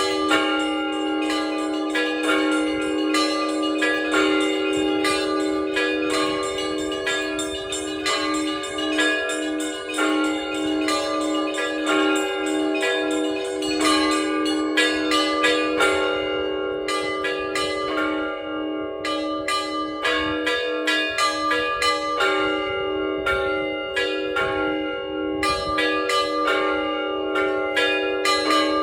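Church bells rung by a bell ringer: small bells struck in quick, continuous patterns over the held, pulsing ring of a larger, lower bell.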